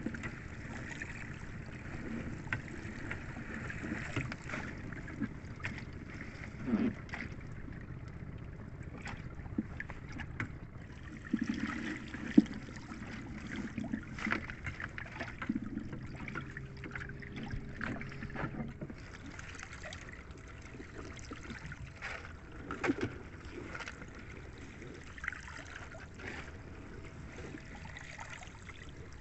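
Seawater splashing and dripping as wet cottonii seaweed is handled and pulled from the sea onto a small boat, with scattered knocks and rustles, the sharpest about twelve seconds in.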